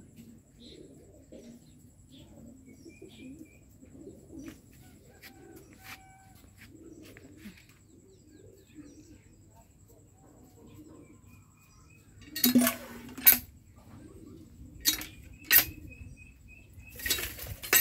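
Doves cooing softly over and over, with a few faint small-bird chirps. From about twelve seconds in, a handful of loud, sharp knocks and clattering bursts stand out above the cooing.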